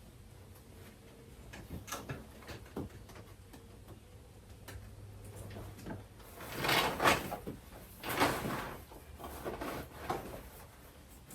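Hard parts of an animatronic clown prop being handled and fitted together: scattered clicks and knocks, then two louder scraping, rustling handling noises about two-thirds of the way through.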